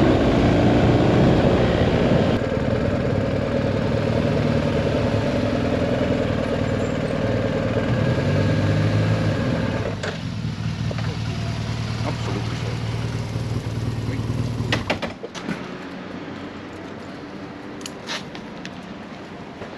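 BMW R 1250 GS Adventure's boxer-twin engine slowing with falling pitch, with wind noise, then idling after the bike stops about ten seconds in, and switched off about fifteen seconds in. A few sharp clicks and knocks follow.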